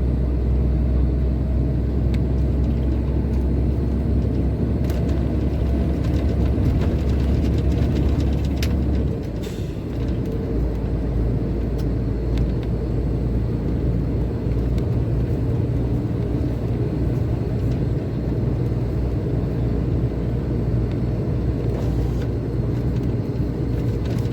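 Truck engine and road noise heard from inside the cab while driving, a steady low drone. About nine seconds in the engine note drops and quietens a little, then runs on steadily.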